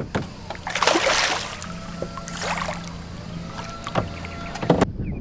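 A large peacock bass thrashing at the surface right beside a canoe while being fought on rod and line, with water splashing in three surges.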